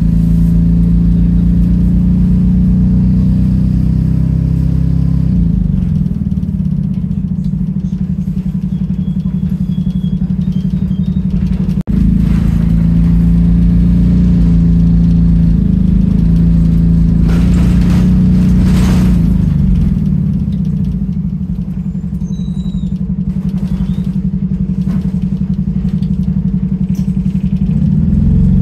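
Diesel engine of a London bus heard from inside the saloon, a loud drone that the title likens to a motorbike. Its pitch drops as the bus slows about five and twenty seconds in, then climbs near the end as it pulls away again, with a brief dropout in the sound about twelve seconds in.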